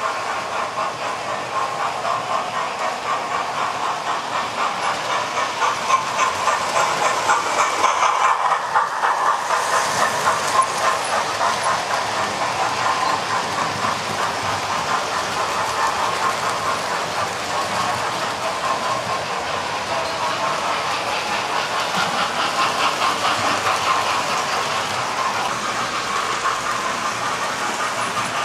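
Model railway trains running on the layout close by: a continuous rapid clicking of small wheels over the track joints with the running noise of the locomotives, a little louder for a few seconds after about six seconds in as a train passes closest.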